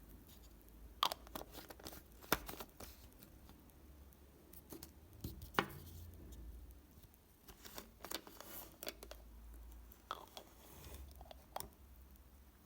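Scattered small clicks, taps and short scraping noises of objects being handled, with the sharpest clicks about a second in, a little after two seconds, and near the middle.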